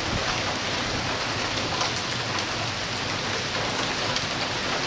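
Steady rain falling and pattering on surfaces, an even hiss with scattered drop ticks.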